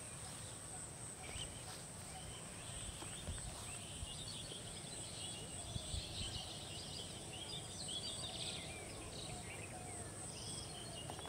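Rural outdoor ambience: a steady high insect drone, with bursts of bird chirping through the middle and a low background rumble.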